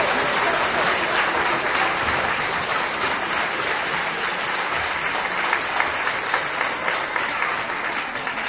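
Audience applause, a dense steady clapping that eases slightly towards the end.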